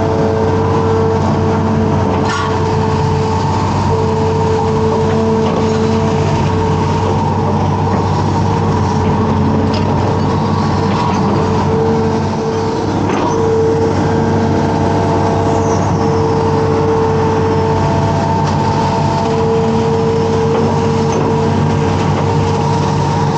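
Amphibious excavator's diesel engine running steadily under working load, with a constant whine over its drone and a few faint knocks as the bucket digs in mud and water.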